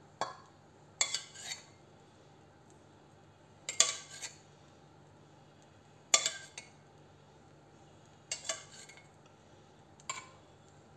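Steel spoon clinking and scraping against a steel pot in short clusters about every two seconds, as sugar syrup is scooped out and spooned onto baked baklava.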